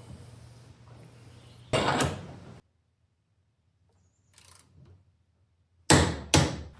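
Parts and tools being handled at a car's engine mount bracket: low shuffling, a short scraping rustle about two seconds in, then after a silent gap two sharp clacks close together near the end.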